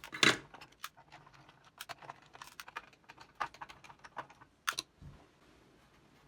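Irregular clicks and light plastic clatter from a Commodore PET keyboard being handled and taken apart, with a louder knock about a quarter second in and another near the end.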